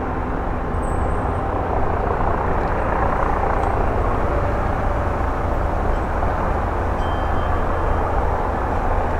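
Leonardo AW169 helicopter flying: a steady rotor and turbine noise, heavy in the low end, growing a little louder over the first few seconds.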